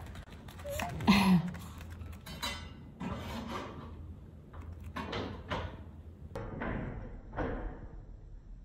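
Household kitchen clatter: a loud clunk about a second in, followed by several softer knocks and rustles from work at the counter.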